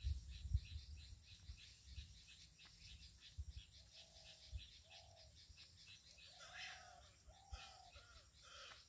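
Faint bird calls: a run of short calls starting about four seconds in and repeating to the end. A few low thumps on the microphone come in the first second, the loudest about half a second in.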